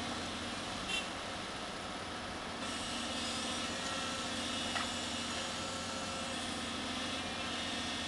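A Daedong DPD350T tilting vibratory sheet pile driver on a hydraulic excavator, running steadily with the excavator's diesel engine while it works a steel sheet pile. A higher hiss joins about three seconds in, and there are two short knocks, one about a second in and one near five seconds.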